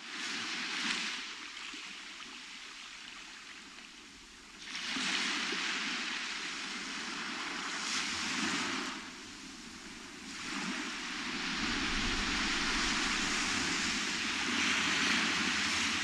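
Small waves breaking and washing up on a sandy beach, the surf swelling and ebbing every few seconds. It fades in at the start.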